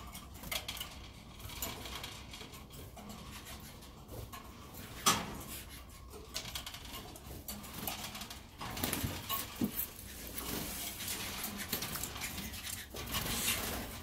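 Faint, scattered clicks and light patter from canaries moving about in wire breeding cages, on the wire and among the seed dishes, with a sharper click about five seconds in.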